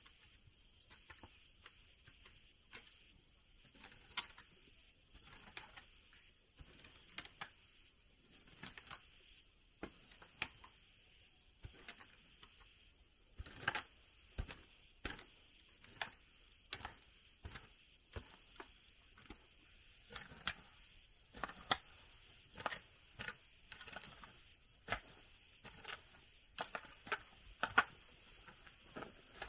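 Irregular light knocks and clicks, about one or two a second, sparse at first and busier in the second half, over a steady high insect drone.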